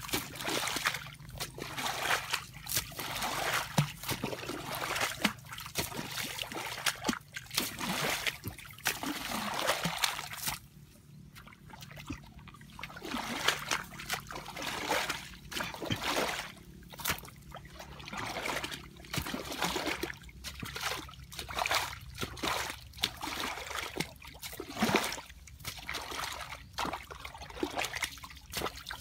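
Muddy ditch water being scooped up with a long-handled wooden scoop and flung out in repeated splashes, about one a second, with trickling in between. The strokes pause for a couple of seconds partway through.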